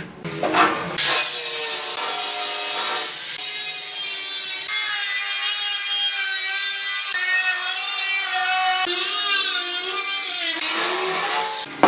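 Corded angle grinder with a thin cut-off disc slicing through the sheet steel of an oil drum, a high wavering screech over the motor's whine. It starts about a second in, dips briefly about three seconds in, and stops near the end.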